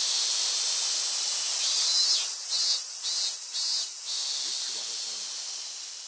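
Cicadas buzzing in the trees: a loud, high-pitched hiss that wavers with several brief dips midway and eases a little toward the end.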